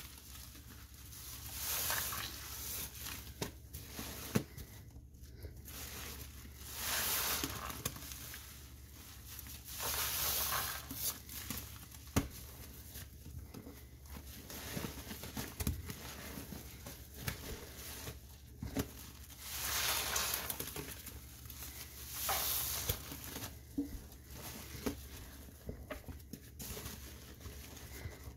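Hands squeezing a wet, soapy sponge: repeated squishes about every two to five seconds, with small sharp clicks between them.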